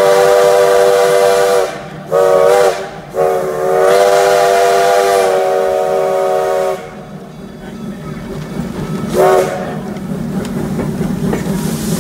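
Steam whistle of Black Hills Central #110, a 2-6-6-2T Mallet tank locomotive, sounding several notes together. It gives a long blast, a short one about two seconds in, another long blast that cuts off about seven seconds in, and a short toot about nine seconds in, as the train nears a road crossing. Between and after the blasts the train's wheels rumble and clatter on the rails.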